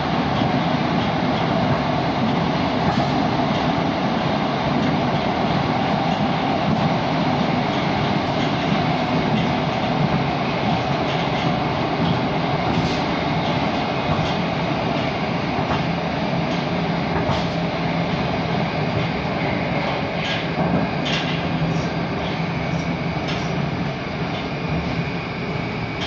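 Moskva-2020 metro train running at speed, heard from inside the car: a steady rumble of wheels on rail and running gear, with a few light clicks in the second half.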